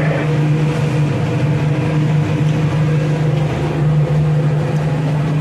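Fishing boat's engine running steadily under way, a constant low hum over a rush of noise.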